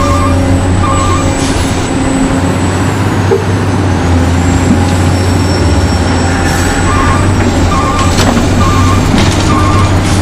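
Remote-control toy trucks running with a loud, steady truck-engine rumble and a thin high whine, and a short beep repeating about every two-thirds of a second at the start and again from about seven to nine and a half seconds in, like a reversing alarm.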